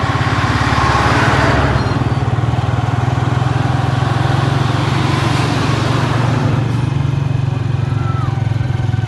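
A small engine running steadily with a fast, even low pulse, with two swells of rushing noise, about a second in and about five seconds in.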